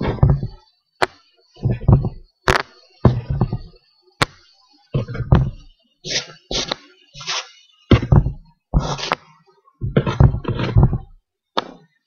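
Two-sided counters being set down one at a time on a cardboard board: a string of irregular soft knocks and thuds, about one a second, some with a sharper click.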